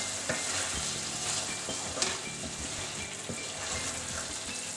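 Spiced tomato-onion curry sauce sizzling steadily in a pan as a wooden spatula stirs zucchini koftas through it, with a couple of light knocks of the spatula against the pan.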